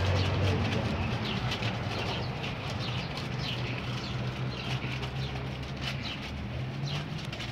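A flock of sparrows chirping constantly, many short overlapping chirps, over a low steady hum.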